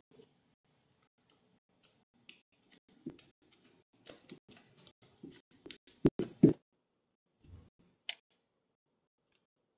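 Hands handling a phone, cleaning wipe and clear plastic camera-protector tray: scattered soft rustles and taps, a few louder knocks about six seconds in, and a sharp click near eight seconds.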